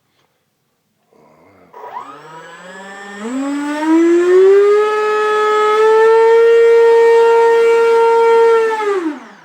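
The 64 mm electric ducted fan of a stock Freewing Stinger 64 RC jet, its 4300 kV motor on a 3-cell battery, spooling up to full throttle with a rising whine. It holds a steady high whine for about four seconds, then winds down quickly near the end.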